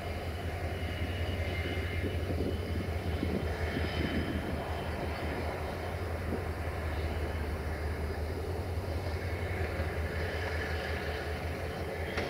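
Diesel locomotive 64-1000-0 running with a steady low engine drone as it rolls slowly during shunting.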